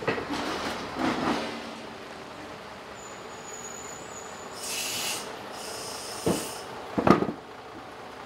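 Heavy lorry's air brakes: a thin high brake squeal, then two short hisses of released air, about a second apart. Several sharp metallic clanks come around them, the loudest about seven seconds in.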